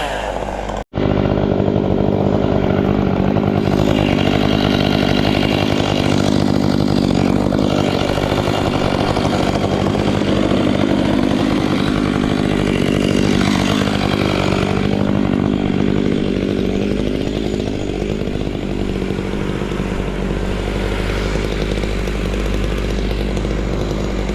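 Chainsaw engine running steadily at high revs, its pitch wavering slightly now and then. The sound drops out for an instant about a second in.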